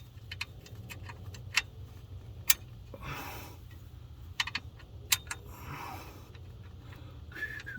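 Scattered light metallic clicks and clinks of bolts and hand tools being handled, with a couple of soft scrapes in between. Near the end someone starts whistling a tune.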